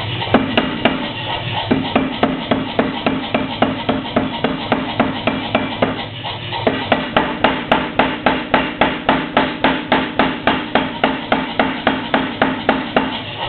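Power hammer striking steel chainplate stock being forged, a fast, even run of blows at about three a second, with a short pause about six seconds in.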